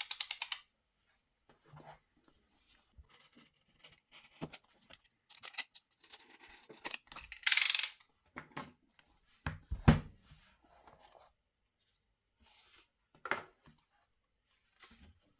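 Packaging of a Samsung Galaxy S24 Ultra retail box being opened by hand: scattered rustling and scraping, a rapid run of ticks at the start, a loud rip of tearing about seven and a half seconds in, and a couple of low thumps about a second later as the box is handled.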